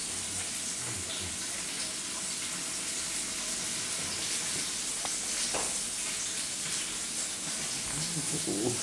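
Steady hiss with a few faint scattered clicks, a grey cat crunching dry kibble from its bowl. A brief low vocal sound comes near the end.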